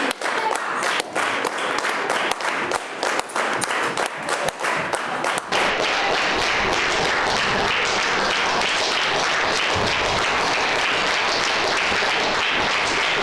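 Audience applauding. For the first five seconds or so the claps come as many distinct, quick strikes; after that they merge into dense, even applause.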